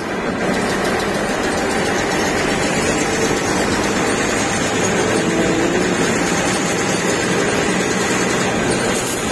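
A bus engine running steadily under way, with road noise, heard from inside the driver's cab.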